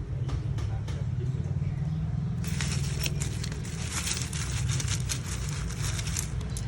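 Small CNC aluminium motorbike chain tensioner parts and bolts clinking and rattling as they are handled, in a dense run of clicks starting about two and a half seconds in and stopping shortly before the end, over a steady low hum.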